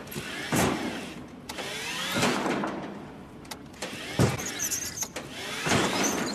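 Small electric utility cart's motor whining in about four short rising bursts as it shunts back and forth, with a few knocks in between.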